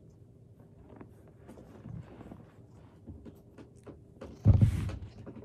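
Soft scratching strokes of a pet brush drawn through a cat's fur, with one loud, brief rustling thump close to the microphone about four and a half seconds in.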